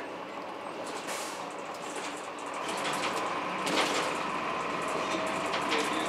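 Cabin noise of a 2002 Blue Bird CS transit bus with a Cummins ISC diesel and Allison B400R automatic: the drivetrain gets louder about halfway through, with a steady whine and then a slowly rising whine joining it as the bus gathers speed. A couple of short rattles sound in the cabin.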